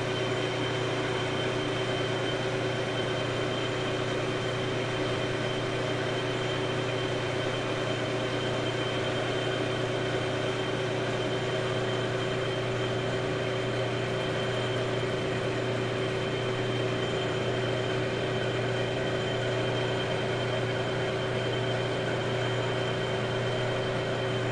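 Metal lathe running steadily while a steel part is turned: a constant motor hum with a thin high whine.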